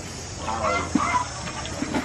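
Chickens clucking in short bursts, over a steady low background hum.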